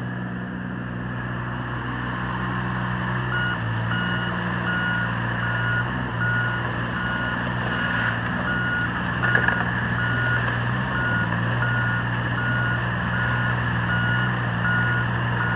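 Yanmar three-cylinder diesel of a John Deere 17G mini excavator running steadily, and from about three seconds in a travel alarm beeping at an even pace, roughly three beeps every two seconds, the sign that the machine is moving. A brief knock partway through.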